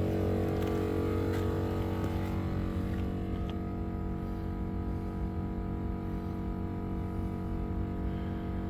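Morrflate 10.6 Pro portable 12-volt air compressor running steadily, pumping up four large truck tyres at once through a common manifold, at about 30 psi partway through inflation. A steady, even hum.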